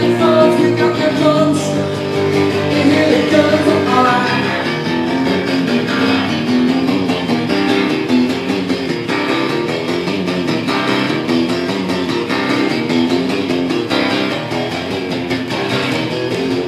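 Amplified acoustic guitar strummed hard in a rapid, steady rhythm: an instrumental break in a solo rock song.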